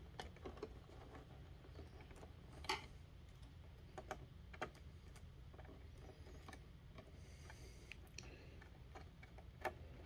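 Faint, scattered small clicks and taps from wires and screw terminals being handled on a pixel controller board. The sharpest click comes about two and a half seconds in.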